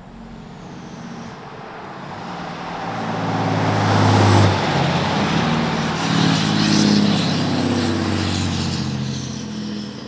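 A 2017 Ram 2500's 6.7 Cummins inline-six turbo-diesel driving past, heard through its 5-inch exhaust and Karnage performance diesel muffler. The exhaust note builds as the truck approaches, is loudest about four seconds in and stays loud for a few seconds, then fades as it pulls away.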